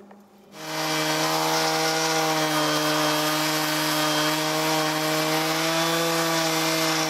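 Stihl chainsaw running at full throttle as it rips a log lengthwise on a chainsaw mill. Its steady, unwavering engine note comes in suddenly about half a second in.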